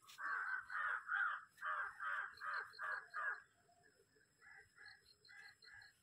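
A crow cawing: a quick run of about nine loud caws in the first three seconds, then after a short pause a fainter run of about five caws.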